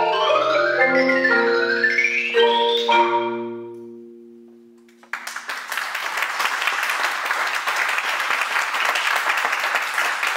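Marimba music in quick rising runs ends on a final chord that rings and fades away. About five seconds in, applause breaks out suddenly and keeps going.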